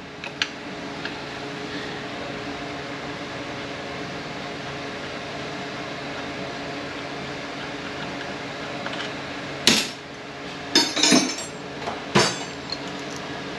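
Hand tools and a loosened steel part clinking and clanking on a steel bench, a few sharp metal knocks in the last four seconds with one short tick just after the start, over a steady low hum.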